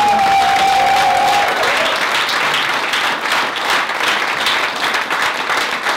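Audience applauding, a dense clatter of many hands, with one person's long held cheer over it in the first second and a half.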